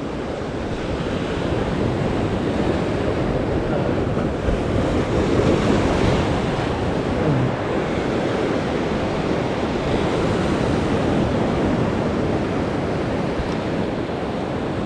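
Sea surf breaking and washing over a rocky shoreline, a steady rush of waves, with wind buffeting the microphone.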